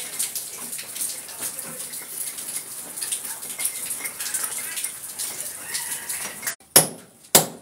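A hand scraping and pulling crumbled plaster and brick rubble out of a hole broken into a thick wall: a gritty, crunchy rustle full of small clicks. Near the end it stops suddenly and two sharp knocks follow.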